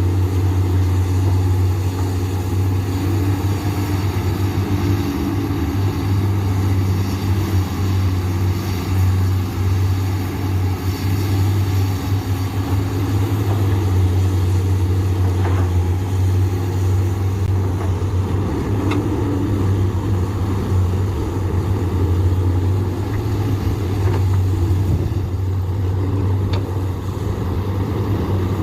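Komatsu PC200 excavator's diesel engine running steadily under work, with a strong low drone and a few faint clicks.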